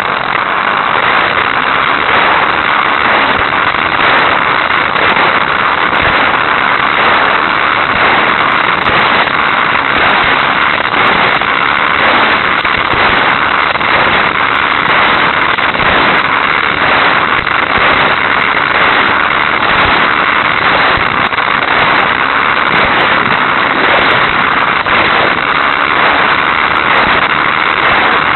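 Hot Wheels Sizzlers car's small electric motor running at high revs, with the rattle of the car speeding over plastic track, heard through a keychain camera riding on the car. The noise is loud and steady, with light irregular ticks.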